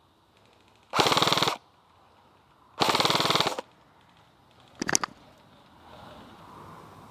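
Airsoft rifle firing two short full-auto bursts, the second a little longer, followed about five seconds in by a couple of sharp snaps.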